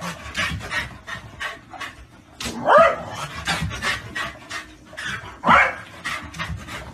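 A dog panting rapidly, broken by two short high-pitched barks about three seconds apart.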